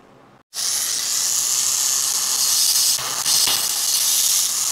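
Flexible-shaft rotary grinder cutting casting slag out of a transfer port in a 1972 Yamaha AT-2 two-stroke cylinder during porting: a steady high hiss that starts abruptly about half a second in, after a brief dropout.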